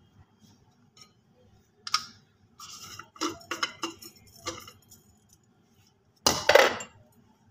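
Glass jar of an electric spice grinder being handled over a ceramic plate: short clinks and knocks of glass and plastic as the blade base is unscrewed and the ground spice is tipped out. A cluster of knocks comes in the middle, and a louder clatter comes about six seconds in.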